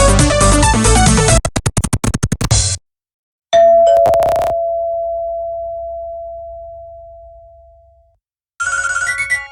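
Nokia 1110 ringtones played back to back. A busy electronic dance-style tune ends in stuttering, chopped notes, then a single bell-like tone sounds once and slowly fades over about four seconds, and near the end a new tune of bright beeping notes begins.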